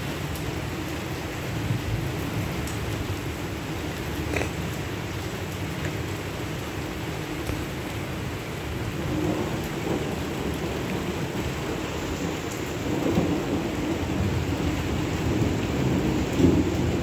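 Steady rain falling on a wet paved yard and garden, with a low rumble underneath that grows louder in the second half.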